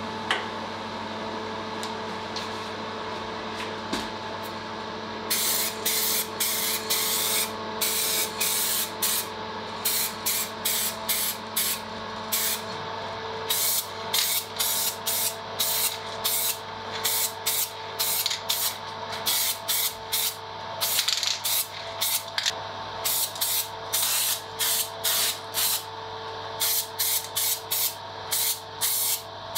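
Many short, irregular bursts of spraying hiss, starting about five seconds in, over a steady electric machine hum.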